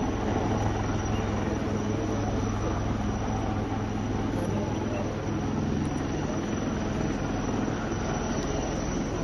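A steady engine drone with a constant low hum under broad rushing noise.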